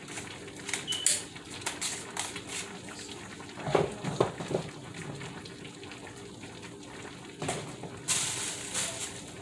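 Kitchen handling noises: plastic seasoning shakers clicking and knocking on the counter, and a wall cabinet door being opened with a few thuds about four seconds in. A brief hiss comes near the end, and a steady low hum runs underneath.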